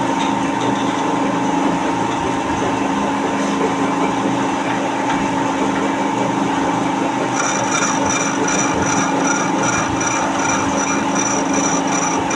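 Lathe running with a steady hum while the cutting tool works the spinning workpiece. About seven seconds in, a high rhythmic scraping of two or three strokes a second joins the cut.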